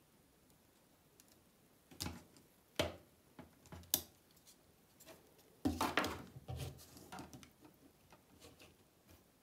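Handling noise from a plastic webcam and its coiled USB cable: scattered light clicks, rustles and knocks, with a busier cluster about six seconds in.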